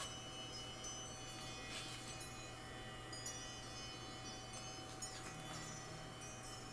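Soft chimes ringing, many high bell-like tones overlapping and fading, with a fresh light strike every second or so.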